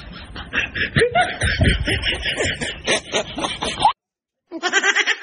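Snickering, chuckling laughter that cuts off suddenly about four seconds in. After a short silence, a different sound with a steady pitch starts near the end.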